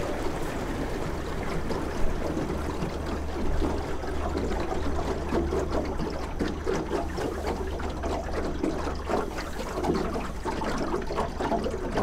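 Water rushing and splashing along the hull of a moving boat, over a steady low engine hum.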